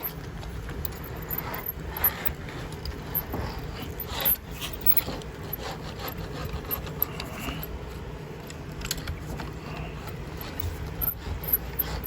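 Tohoku Espal New Roll hand sheet-metal bender being worked along a sheet of metal, making irregular metal clicks and scraping as it creases the sheet.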